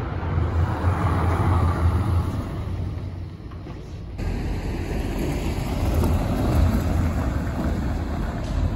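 Low, steady rumbling outdoor street noise, changing abruptly about four seconds in.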